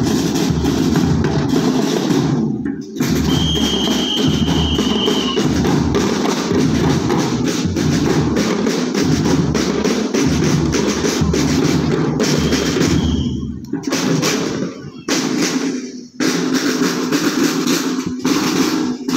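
A school marching drum band's snare and bass drums playing a rhythm at practice, with a few short breaks in the playing. A high held tone sounds twice over the drumming.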